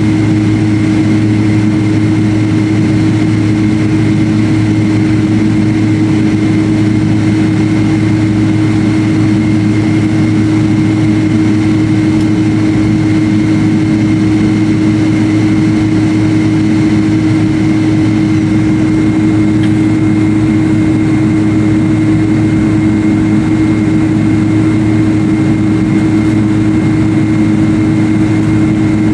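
Steady hum of a jet airliner heard from inside the passenger cabin: a low engine drone with a thin, steady high whine over even rushing noise.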